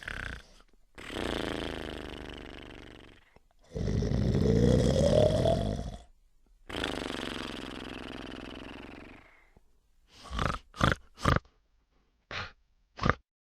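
A person snoring. There are three long drawn-out snores, the second rising in pitch, then five short snorts in the last few seconds.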